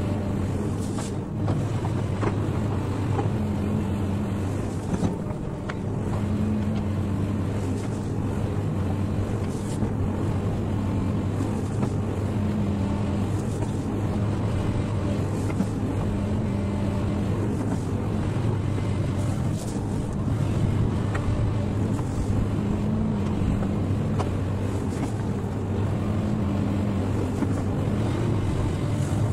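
XCMG hydraulic excavator's diesel engine running steadily at working speed, a low drone that swells slightly every few seconds.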